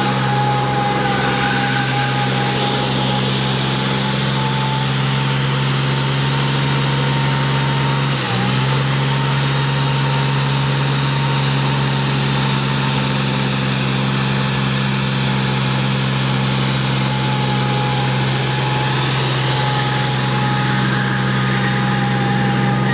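A vehicle engine held at a steady, unchanging pitch, with a hiss over it and a brief dip about eight seconds in.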